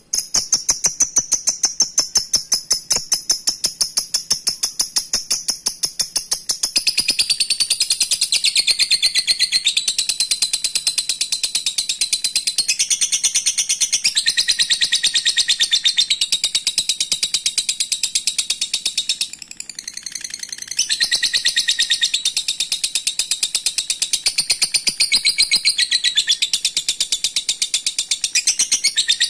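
Fischer's lovebird giving its long 'ngekek' song: a fast, unbroken chattering trill of high, rapid notes, held for a long time. It goes softer for a moment a little past the middle, then carries on.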